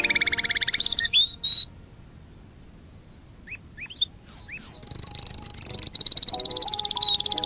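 A songbird singing a very rapid, high trill that breaks off about a second in. After a short pause come a few quick sliding chirps, then the fast trill starts again and runs on.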